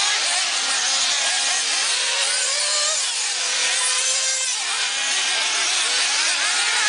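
Several 1/8-scale nitro RC buggies' small two-stroke glow engines buzzing at once, each pitch rising and falling as the cars throttle up and back off.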